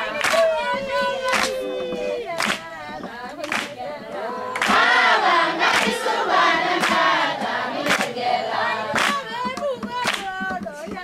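A group of people singing together, several voices at once, with sharp claps keeping a steady beat roughly once a second or a little faster.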